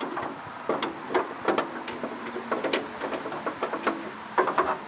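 Metal parts of a bandsaw mill's blade-tension handle assembly clinking and knocking as they are handled and fitted: irregular sharp clanks with a short metallic ring, bunched in a quick cluster near the end.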